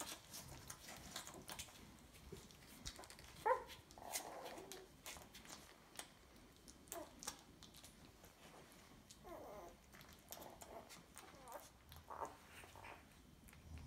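Two-day-old Fila Brasileiro puppies nursing: faint wet sucking clicks throughout, with short high squeaks and whimpers scattered through, the loudest a little over three seconds in.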